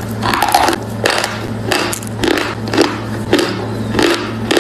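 Close-up crunching of a dry block of edible chalk being bitten and chewed, a crisp crunch about every half second, over a steady low hum.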